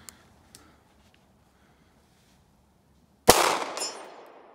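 A single pistol shot from a Fusion Firearms 1911-style pistol, fired about three seconds in, with a long echo trailing off for about a second afterwards.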